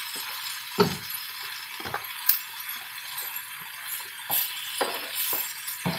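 Breaded chicken breasts sizzling in hot oil and butter in a frying pan, a steady hiss, with several sharp clinks and taps of a utensil against the pan.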